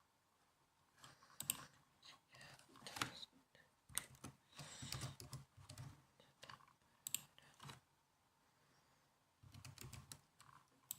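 Typing on a laptop keyboard: short runs of faint key clicks broken by brief pauses, with a longer pause a little after the middle.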